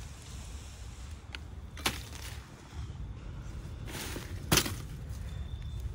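A hand sickle's blade slashing through weed stems: two sharp cutting strikes, about two seconds in and again about two and a half seconds later, over a low steady rumble.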